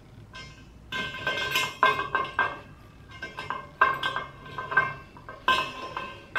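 80×80 mm ITEM aluminium extrusion profiles knocking and scraping against each other as the fastener lock sliders in one profile's end are worked into the T-slot of the other. A string of sharp metallic clinks begins about a second in, each followed by a short ringing tone.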